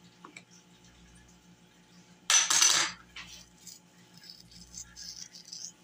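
Whole dried thyme shaken out of a spice jar into a palm, a short loud rush a little over two seconds in, then faint crackly rustling as the coarse dry leaves are crushed between the fingers.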